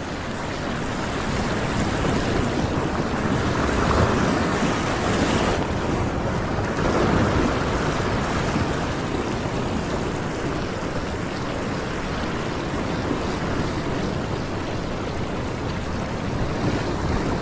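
Sea surf washing and breaking over the rocks just below, a steady rush that swells a couple of times, with wind rumbling on the microphone.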